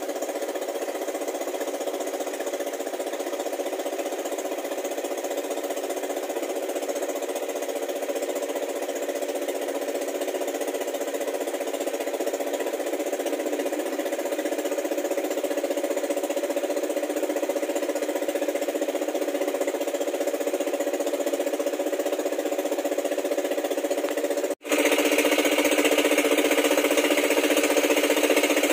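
Small boat's engine running steadily, with a brief break about 25 seconds in, after which it is louder.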